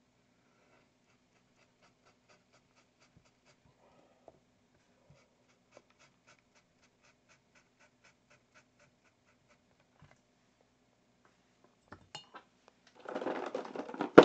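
Faint, regular small ticks of a fine paintbrush dabbing acrylic paint onto a canvas panel. Near the end come a few clicks and then a short burst of louder rustling and knocking as paint supplies are handled.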